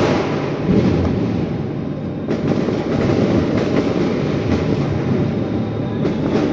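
A string of firecrackers going off in a rapid, continuous crackle, opening with a sharp bang and growing denser about two seconds in.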